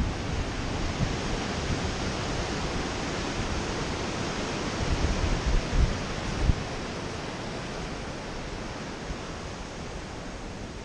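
Ocean surf breaking and washing ashore as a steady rushing noise, with wind rumbling on the microphone in gusts between about four and a half and six and a half seconds in.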